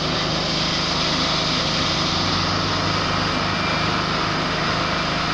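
Steady machine drone with a constant low hum, unchanging throughout.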